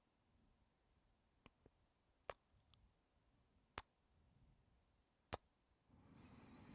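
Four short, sharp lip-smack kisses close to the microphone, about every second and a half, against near silence. A soft breath follows near the end.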